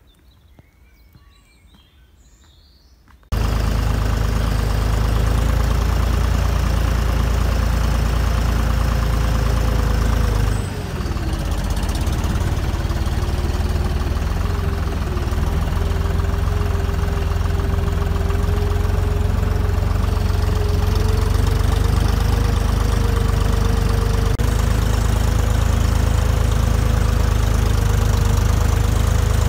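Deutz-Fahr tractor's diesel engine running steadily under way on a dirt track, heard from the seat over the hood. It comes in abruptly after about three quiet seconds. Its speed dips briefly about a third of the way through, then picks back up and holds.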